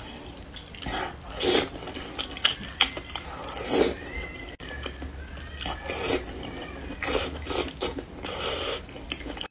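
A person slurping and chewing saucy noodles, close to the microphone, in a series of short wet slurps. The loudest slurps come about one and a half and four seconds in, and several more follow near the end.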